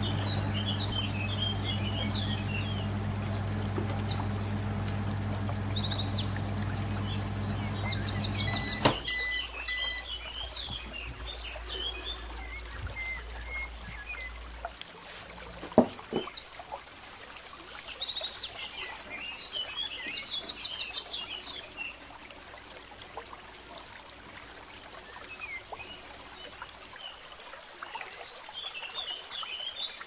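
Hotpoint microwave oven running with a steady low hum, which stops with a click about nine seconds in. Birds chirp throughout, and a single sharp knock comes a little past halfway.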